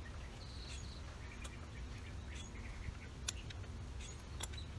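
Quiet outdoor background with a low steady rumble and scattered short bird chirps, plus a few light clicks from clips being worked loose on a motorcycle's front fender, two of them in the last second and a half.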